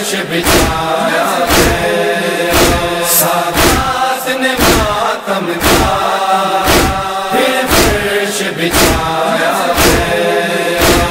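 Male voices chant a nauha, the Urdu Shia lament, in unison. Under them run steady matam beats, hands slapping on chests about twice a second.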